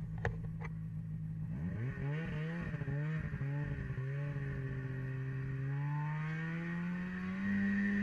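Snowmobile engine running under load uphill, its pitch wavering up and down with the throttle a couple of seconds in, then rising steadily toward the end. Two sharp clicks near the start.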